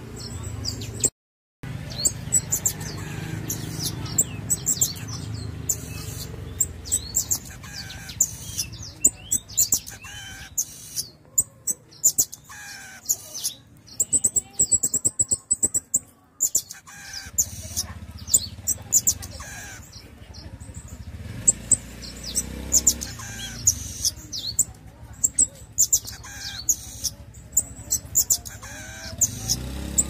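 Pin-tailed parrotfinch singing: quick runs of very high, thin notes, repeated every second or two, mixed with lower down-slurred notes, over a low steady hum.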